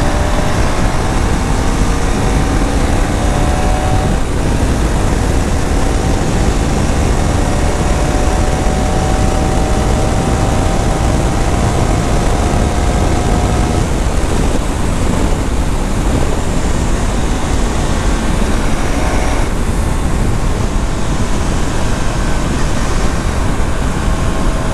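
KTM Duke 390's single-cylinder engine and exhaust running at road speed under heavy wind rush. Its note climbs slowly for the first dozen seconds or so as the bike pulls in gear, then holds steady.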